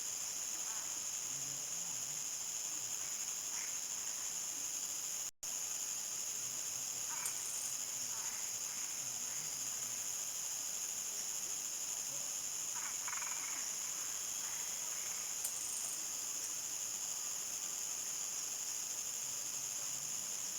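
Crickets chirring in a dense, steady high-pitched chorus at nightfall, with faint, scattered shorter calls of other animals underneath. The sound drops out for an instant about five seconds in.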